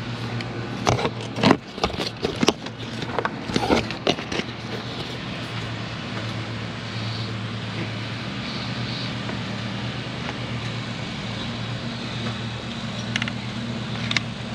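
Handling noise as a nylon lowering strap is pulled tight around a sport bike's front end: a cluster of sharp clicks and knocks in the first four seconds, a few more near the end, over a steady low hum.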